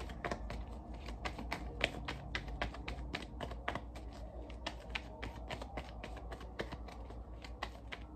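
A tarot deck shuffled by hand, its cards clicking against each other in an irregular run of light snaps, several a second.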